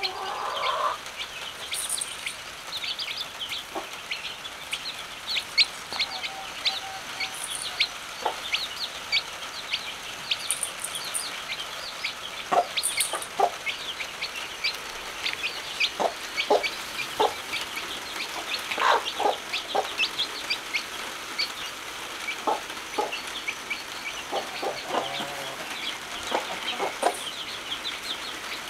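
Chicks peeping: a constant stream of short, high-pitched peeps, with a hen clucking low now and then.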